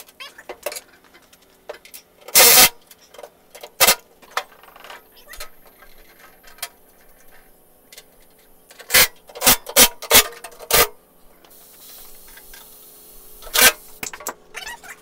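Cordless drill/driver run in about eight short bursts, tightening bolts on the mower deck: one about two and a half seconds in, one near four seconds, five quick ones between nine and eleven seconds, and one near the end. Small metal clinks and taps of bolts and tools come in between.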